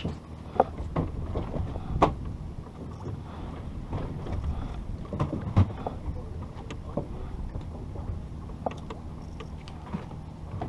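Boat engine running steadily with a low hum, with scattered sharp knocks and clicks, the loudest about half a second, two seconds and five and a half seconds in.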